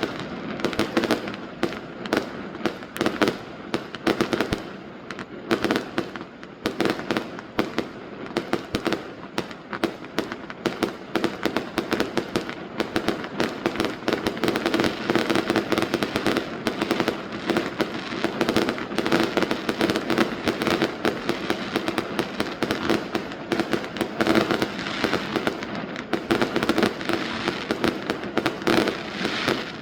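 Fireworks going off: a dense, unbroken run of bangs and crackles, many each second.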